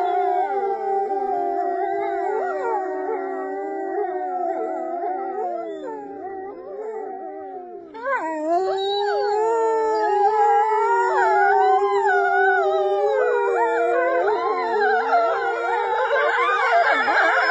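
Grey wolves howling in chorus, with a woman howling along through cupped hands: several long, overlapping howls at different pitches that glide and waver. The chorus drops in level around the middle, then swells again about halfway through with more voices, turning into a denser mix of higher, wavering howls near the end.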